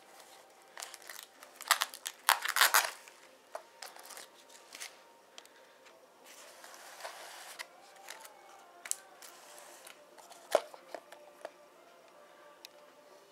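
Handling noise close to the microphone: scattered rustling, crinkling and sharp clicks as the foam RC plane and its wiring and speed controller are handled, loudest about two to three seconds in. The motor is not running.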